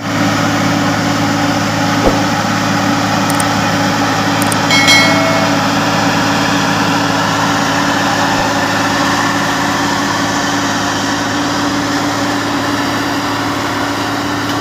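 Engine of heavy road-paving machinery running steadily, with a single click about two seconds in and a brief high-pitched squeal about five seconds in.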